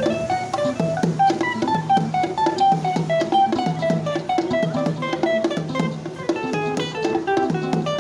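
Instrumental improvisation: a plucked guitar playing a quick line of single notes over drums keeping a steady beat.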